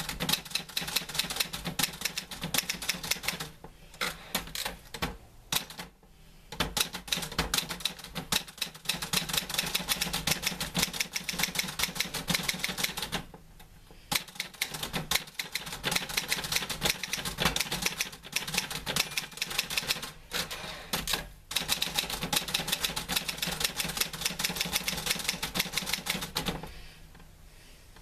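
Typewriter being typed on: rapid runs of key strikes in bursts, broken by short pauses of a second or so every few seconds.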